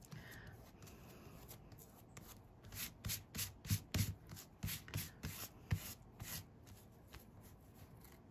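Fingertips rubbing damp paper fibres off a toner-based gel medium image transfer on fibrous art paper, a faint papery scrubbing in short strokes, about three a second, strongest in the middle stretch.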